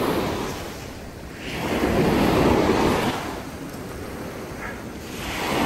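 Ocean surf breaking and washing up the beach, swelling as a wave comes in about a second and a half in, easing off, then building again near the end.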